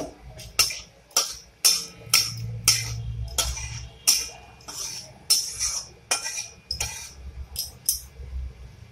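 A metal spatula scraping and knocking against an aluminium kadai as it stirs a tempering of dried red chilli, bay leaf and cumin seeds in hot oil. The strokes are short and sharp and come about twice a second.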